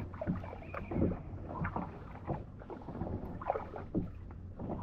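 Kayak paddle blades dipping and splashing in the water, a stroke roughly every half to three-quarters of a second, over a steady low rumble.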